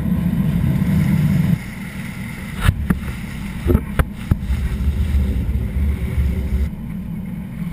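Boat engine running with a steady low rumble, with a few sharp knocks about three to four seconds in.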